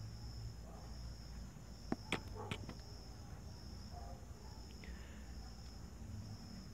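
A night insect chirping faintly in a high, thin pulsed trill that repeats about once a second. A few sharp clicks come about two seconds in.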